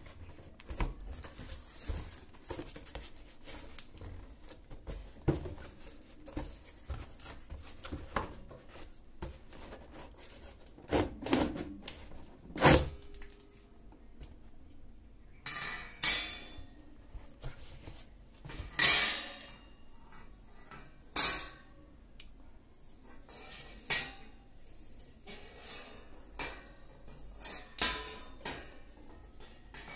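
Black steel wire shelf rack being handled and turned over, its metal frame clinking and knocking at irregular moments, with short scraping handling noises in between.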